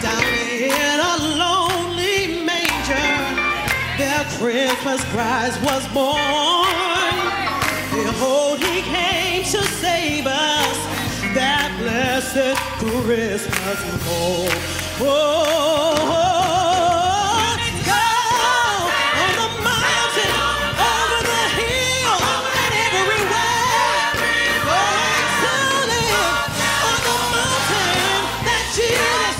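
A woman singing a gospel solo into a microphone, her voice wavering in pitch on held notes, over keyboard accompaniment.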